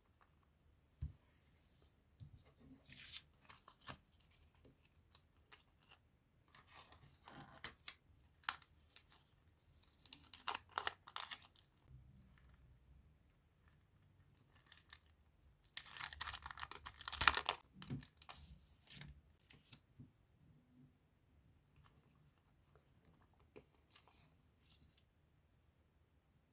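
Packaging being torn open and crinkled by hand, in several short rustling bursts. The longest and loudest burst comes a little past halfway.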